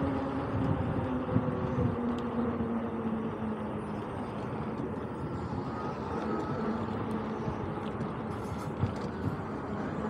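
E-bike conversion-kit motor (52 V, 3000 W) whining under way over tyre and wind noise. The whine slides down in pitch over the first few seconds as the bike slows, and a higher whine rises around the middle as it picks up speed again.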